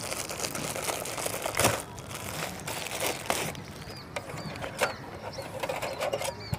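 Thin polythene bag crinkling as a car stereo is pulled out of it, with a sharp click about two seconds in. Then a few light clicks and taps as the bare unit and its metal mounting sleeve are handled.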